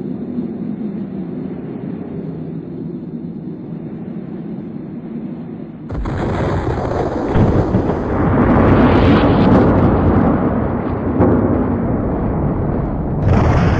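A steady low rumble, then about six seconds in a sudden loud cinematic explosion sound effect: a long rushing blast that swells and stays loud, with a second sharp surge near the end.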